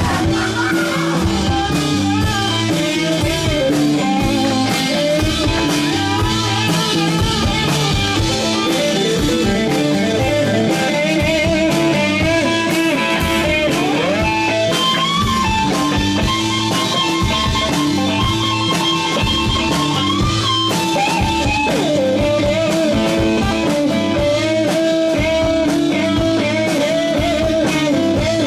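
Rock band playing an instrumental passage of psychedelic blues-rock: an electric guitar lead with bending, sliding notes over drum kit and bass, loud and continuous.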